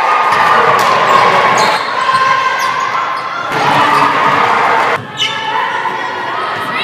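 Live basketball game sound on a hardwood gym court: the ball bouncing as it is dribbled, with short high sneaker squeaks and players' shouts, echoing in the large gym.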